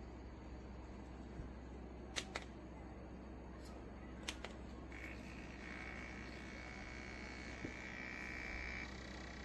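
Clip-on grow fan with an EC motor running with a faint, steady low hum, with a few sharp clicks early on. A higher, steady whine comes in about five seconds in and stops shortly before the end.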